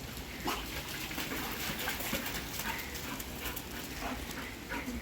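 Golden retriever puppy panting and whimpering softly while playing in pooled rainwater, with many light, irregular splashes and patters of water.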